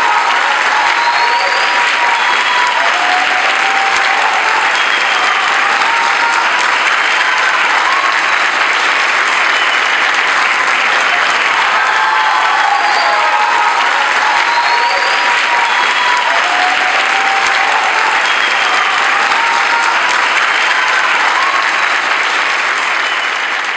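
Audience applauding steadily and densely, with a few voices calling out over the clapping.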